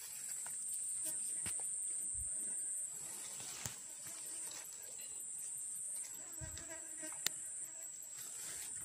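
Steady, high-pitched drone of insects in the swamp vegetation, with a few light clicks.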